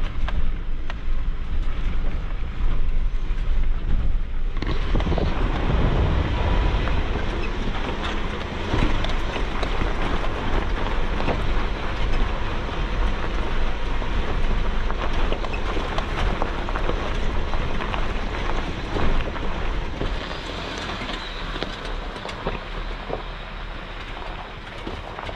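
Jeep Wrangler JK driving over a rocky dirt road: a steady low rumble with constant rattling and knocking of tyres and body over rock, growing busier about four seconds in, with some wind on the microphone.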